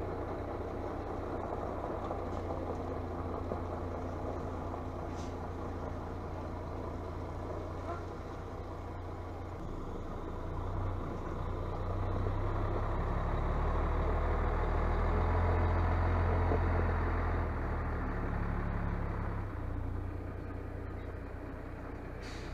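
Diesel tipper truck engine running as the truck manoeuvres on the site; the engine grows louder for several seconds around the middle as it works harder, then eases back.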